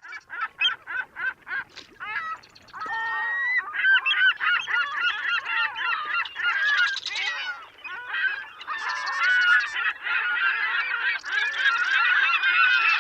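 A flock of birds calling: a run of short separate calls at first, then from about two seconds in many overlapping calls at once.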